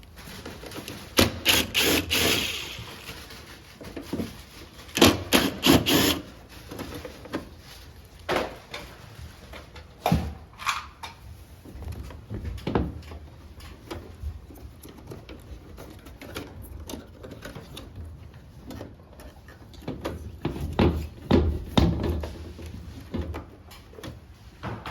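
Irregular clicks, knocks and light rattles of air-conditioner parts being handled during disassembly of a ceiling-cassette unit, in several short clusters with quieter gaps between.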